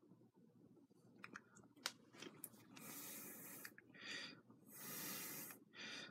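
A person breathing softly close to the microphone, about four breaths in a row, after a few small mouth clicks about a second in.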